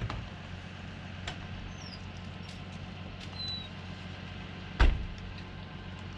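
Excavator's diesel engine running steadily at a distance, a low even hum, with one heavy thump about five seconds in.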